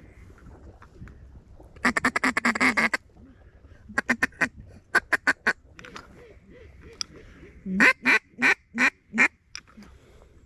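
Hand-blown duck call making a fast feed-call chatter, then short groups of quacks, then a five-note run of quacks that fades note by note. Faint calls of distant ducks and geese go on underneath.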